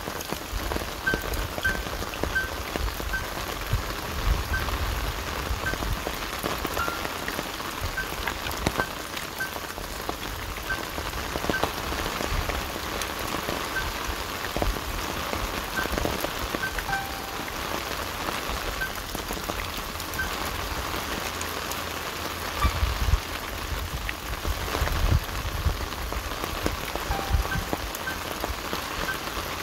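Steady rain falling, with many small drop impacts throughout. Faint short high chirps recur every second or so, and a few louder low thuds come about two-thirds of the way through.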